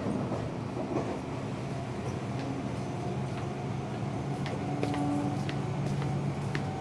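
Seibu 6000 series electric train running, heard inside a motor car: steady rumble of the running gear with several steady humming tones from the traction motors and scattered short clicks. This set is noted for an abnormal noise when accelerating and braking.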